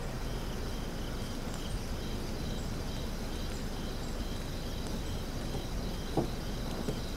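Crickets chirping at night in a steady, even rhythm of about two to three chirps a second, over a low background hiss. A soft click about six seconds in.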